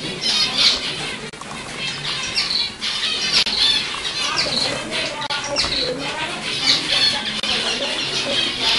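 A flock of zebra finches calling together: a dense, continuous chatter of many short, high, overlapping calls.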